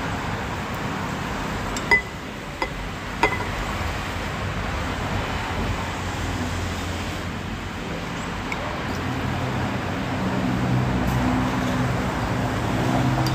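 A few sharp clinks of a metal spoon and chopsticks against a ceramic noodle bowl, about two to three seconds in, over steady traffic noise. A low engine hum grows louder near the end.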